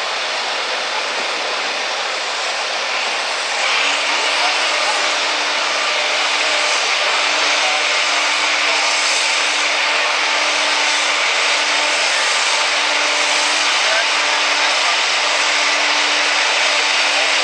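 John Deere farm tractor's engine running steadily while hitched to a pulling sled. About four seconds in it gets louder and a steady hum sets in and holds.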